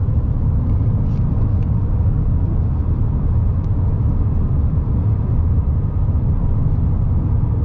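Steady low road rumble of a moving car.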